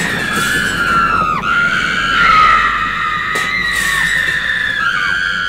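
High-pitched screaming, several overlapping voices holding long cries that drop sharply in pitch a few times.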